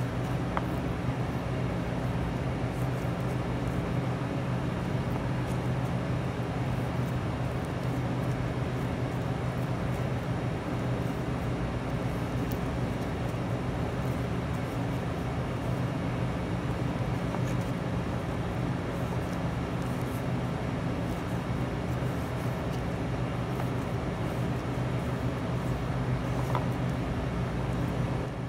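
Steady low machine hum, with a few faint taps of a knife on a plastic cutting board as raw chicken breast is sliced.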